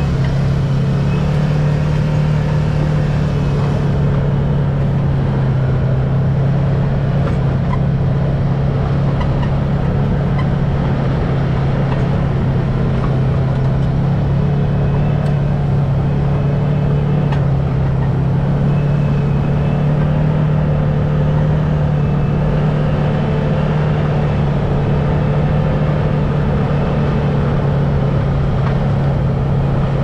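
Can-Am Maverick X3 side-by-side's turbocharged three-cylinder engine running at a steady cruise, a constant low drone holding one even pitch.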